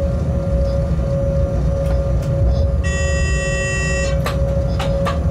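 Electric locomotive running, heard from inside the cab: a steady low rumble with a constant hum. About three seconds in, a steady horn-like tone sounds for about a second and a half, followed by a few sharp clicks.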